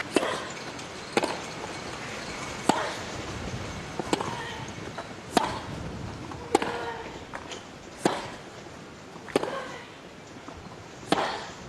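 Tennis rally: a ball struck back and forth with racquets, nine sharp hits about one and a half seconds apart.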